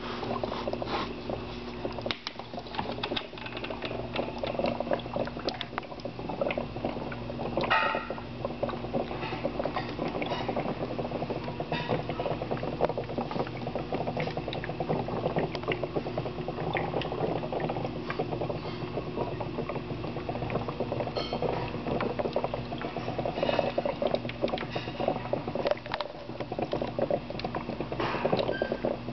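HHO brick dry cell running electrolysis: electrolyte fizzing and bubbling continuously as hydrogen-oxygen gas froths up through the tubing, with a steady low hum underneath.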